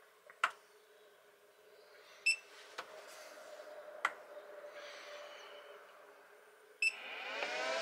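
ALLPOWERS portable power station being switched on by its front buttons: a few button clicks and two short electronic beeps, the second near the end. Right after the second beep the unit starts up with a hum that rises in pitch.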